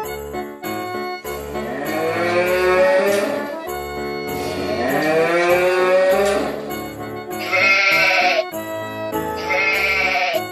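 Christmas instrumental background music with farm-animal call sound effects laid over it: two long drawn-out calls that rise and then hold, followed by two shorter, higher calls near the end.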